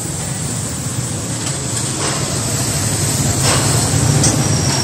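Oxy-fuel cutting torch hissing steadily as it burns through a steel pipe, over a low rumble, with a few faint knocks.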